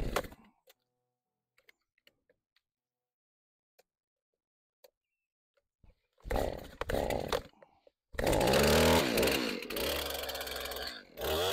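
Stihl MS 271 Farm Boss two-stroke chainsaw being pull-started on full choke: two short pulls of the starter cord, then the engine fires and keeps running. Its engine speed sinks, dips briefly near the end and picks up again.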